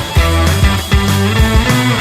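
Background rock music with a steady drum beat over a bass line.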